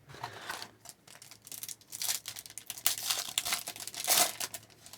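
A trading card pack's plastic wrapper being torn open and crinkled, a run of crackling rustles that is loudest about four seconds in.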